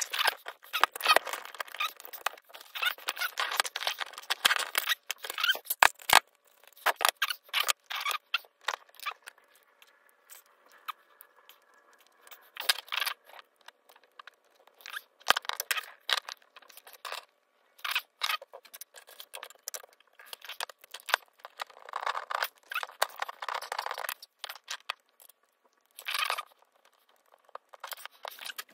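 Hands working on a radio-controlled car's chassis and brushless motor: irregular clicks, taps and scrapes of small metal tools, screws and plastic parts.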